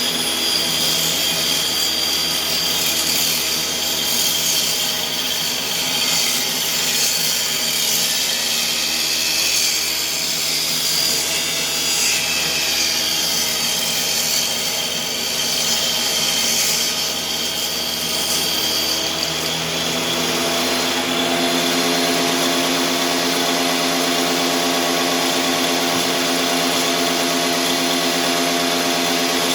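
Woodworking power tool motor running steadily, with the hiss of cutting through wood for the first two-thirds. About two-thirds of the way in it settles into an even hum, running without load.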